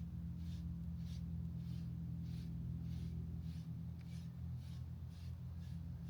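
Dog brush raking through a shedding dog's coat in regular strokes, a little under two a second, over a steady low hum.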